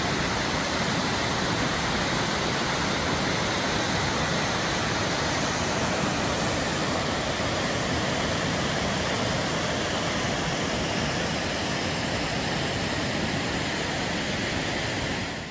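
Waterfall's steady rush of falling water, an even unbroken hiss that cuts off abruptly right at the end.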